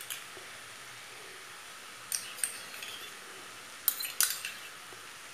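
Steel spoon clinking and scraping against a small steel bowl while scooping out sauce: a couple of light clinks about two seconds in and two more near four seconds, over a faint steady hiss.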